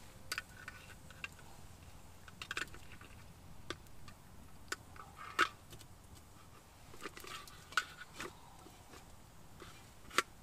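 Irregular crackles, snaps and clicks from a small wood fire burning in a kettle-grill fire pit as it is being tended.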